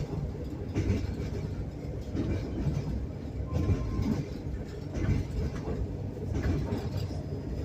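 Passenger train's wheels rolling over old jointed, unwelded rails: a steady low rumble with the clickety-clack of the wheels striking the rail joints.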